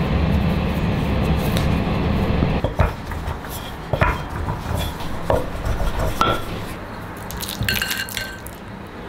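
Kitchen handling sounds: a low rumble that stops after a couple of seconds, then scattered taps and clicks. Near the end comes a short run of ringing clinks, a metal spoon knocking and scraping against a glass bowl of dumpling filling.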